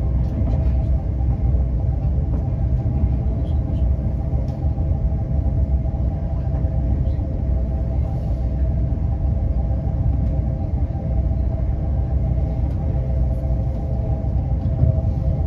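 Inside a Class 350 Desiro electric multiple unit running at speed: a steady, deep rumble of wheels on rail with a constant hum over it.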